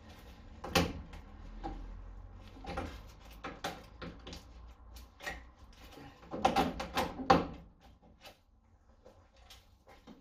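Rust-rotted steel front wing of a Mk2 Ford Escort being pulled and flexed by hand, its sheet metal giving irregular creaks, scrapes and knocks. The loudest is a quick run of clanks about six and a half to seven and a half seconds in.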